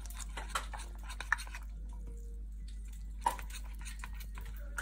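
Steel spoon stirring wet flour batter in a glass bowl, soft scraping with a few sharp clicks of the spoon against the glass. A steady low hum runs underneath.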